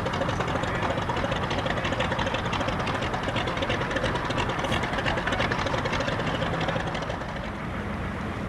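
Piston aircraft engine running at idle, a rapid, even pulsing knock. It drops off a little near the end.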